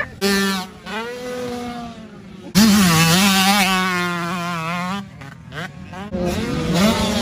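Dirt bike engines running at high revs in several short passes, each holding a wavering pitch, with a sudden louder start about two and a half seconds in and a brief drop-off around five seconds.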